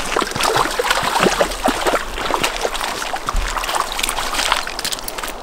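Water splashing and sloshing in the shallows at the shore, many quick irregular splashes: a hooked lenok thrashing as it is dragged out of the river onto the bank.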